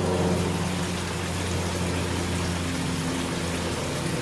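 A small motor humming steadily under an even, constant hiss.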